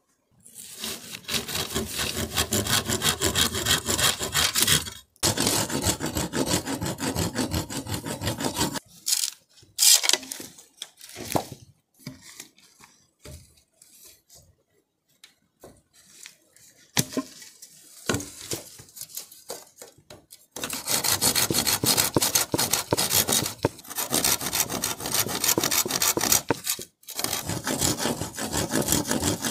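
A saw cutting through a green bamboo pole in quick back-and-forth strokes, in several long runs broken by short pauses. The quieter middle stretch holds scattered knocks and rustles.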